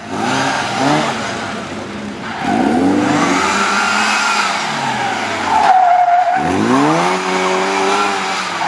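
A small open-top car's engine revving up and down hard as it is thrown around tight turns, with tyres squealing. About six seconds in, a sustained tyre squeal holds briefly as the engine drops off, then the revs climb again.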